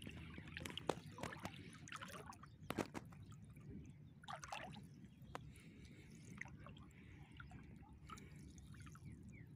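Faint dripping and small splashes of river water running off a gill net as it is hauled in by hand, with scattered light clicks over a steady low rumble.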